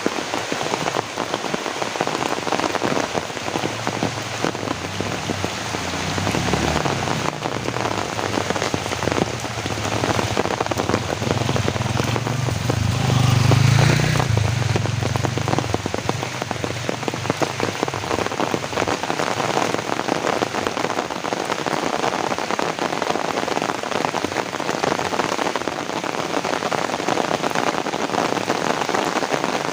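Heavy rain falling steadily in a dense hiss. A low rumble swells and fades about halfway through.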